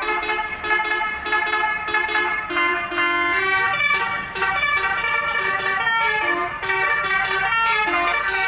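Basuri telolet bus horn playing a fast tune of horn notes, the pitch jumping from note to note every fraction of a second without a break.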